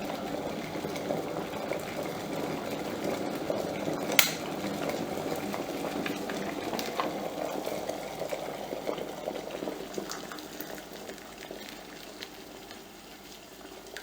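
Water boiling in an Adler AD 1225 electric kettle, a bubbling that slowly dies down. A single sharp click about four seconds in.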